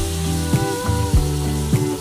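Background music with a steady beat and sustained chords, over a faint sizzle of spinach wilting in a frying pan.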